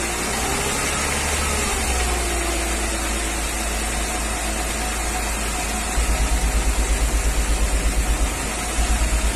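1994 Mercedes-Benz G320 straight-six idling with the number 2 injector unplugged, so that cylinder is not firing. With it disconnected, the light metallic knock, which the mechanic suspects is a cracked or scuffed piston, is much quieter. From about six seconds in, a low pulsing comes and goes twice, about six or seven beats a second.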